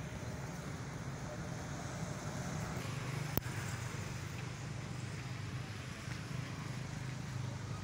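A steady low rumble of background noise, with a single sharp click about three seconds in.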